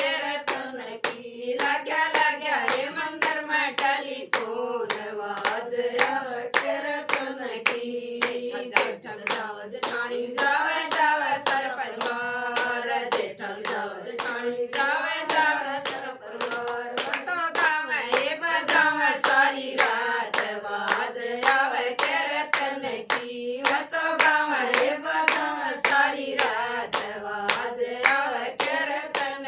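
Women singing a Haryanvi devotional bhajan in kirtan style, kept in time by a steady rhythm of hand claps.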